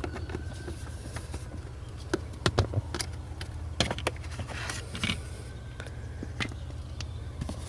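Scattered clicks and knocks of a small plastic interior trim panel under the dashboard being handled and worked loose, over a steady low hum.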